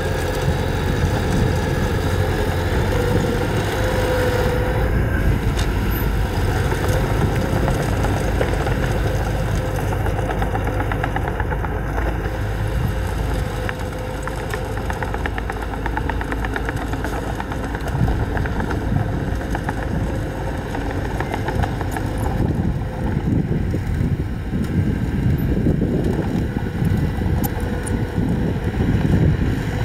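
Mini crawler dozer's diesel engine running steadily as it pushes soil.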